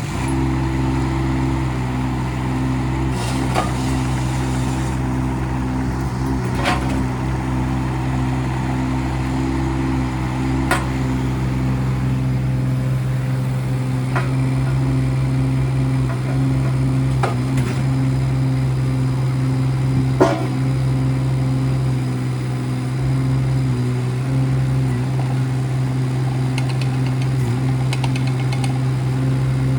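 Kubota K008-3 micro excavator's three-cylinder Kubota diesel catching and then running at a steady speed. Sharp metallic clanks come every three to four seconds.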